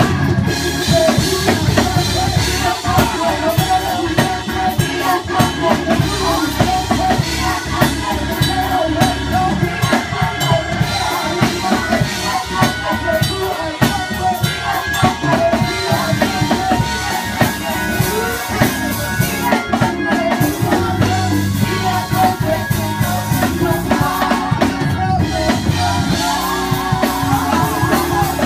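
Live gospel praise-and-worship band playing at full level, driven by a drum kit, with singing over it.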